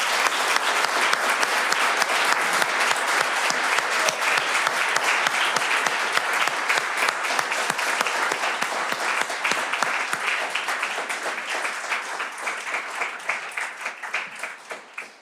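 Audience applauding, many hands clapping together at a steady level and dying away near the end.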